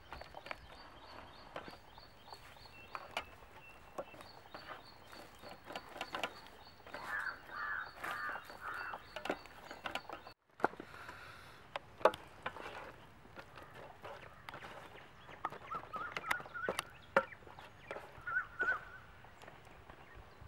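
Hands squelching and turning raw chicken legs in a thick wet marinade on a steel plate, making soft wet slaps and small clicks against the metal, one sharp tap about halfway through. Poultry call in short series behind it, about four calls around a third of the way in and more near the end.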